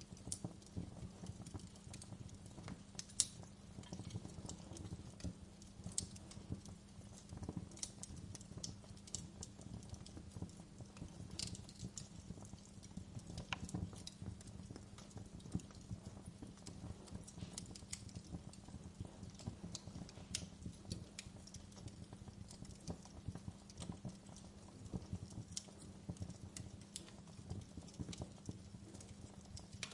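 Wood fire crackling: irregular sharp crackles and pops, a few of them louder, over a low steady hum.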